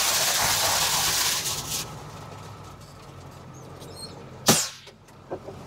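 Grain-auger machinery running with a steady low hum. A loud rushing hiss fills the first two seconds or so. A single sharp bang about four and a half seconds in is the loudest sound, followed by a smaller click.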